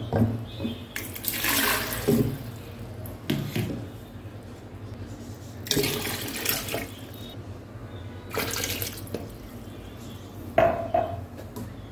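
Water poured from a plastic bottle into a plastic pitcher in several separate pours, each lasting up to about a second.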